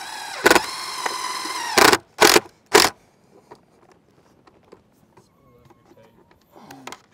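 DeWalt 20V cordless drill running steadily for about two seconds, driving a screw through a metal pipe boot's flange into the metal roof panel, followed by two sharp knocks.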